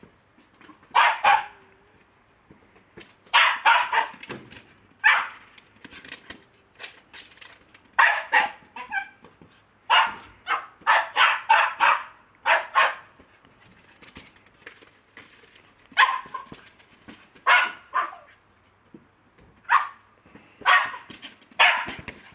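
Lakeland terrier barking, with sharp barks in quick runs of two to five and short pauses between.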